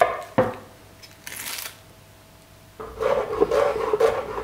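Chef's knife chopping a shallot on a wooden cutting board. After a knock and a short scrape, a fast run of chopping strokes starts about three seconds in.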